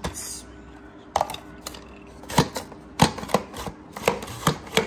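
Onions being sliced on a handheld mandoline slicer: a string of sharp slicing strokes, spaced unevenly at first and coming quicker after about three seconds.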